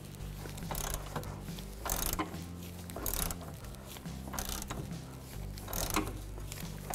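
Hand ratchet with a 14 mm socket clicking in short bursts about once a second as it backs the rusted nut off a sway bar end-link stud.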